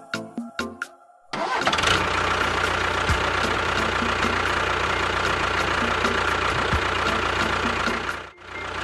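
Music with a clicking beat, then about a second in a steady engine sound starts up and keeps running under the beat. It drops out briefly near the end.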